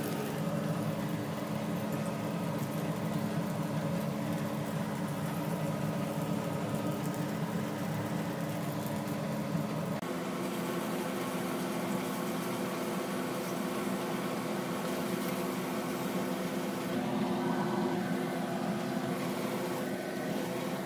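Chicken patty sizzling in oil in a frying pan over a steady electrical hum. The hum's pitch changes about ten seconds in.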